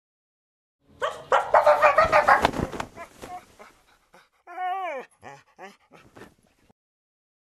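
Small dog vocalizing: starting about a second in, a quick run of loud barks and grumbles, then one longer whine falling in pitch and a few short falling yelps that fade out.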